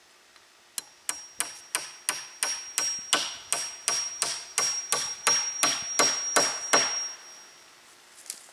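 Quick repeated blows of a hatchet on a wooden pole, about three a second and some eighteen in all, each a sharp crack with a thin metallic ring. The blows stop about seven seconds in, and one light tap follows near the end.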